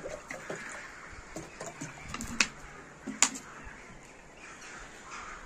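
Two sharp clicks about a second apart as a small metal camping kettle is handled and lifted by its handle.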